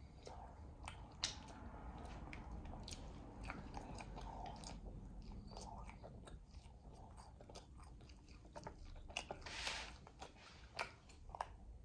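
Close-up eating sounds: chewing and biting with scattered crisp clicks and cracks, typical of Dungeness crab shell being cracked and picked, and a short hiss about two-thirds of the way through.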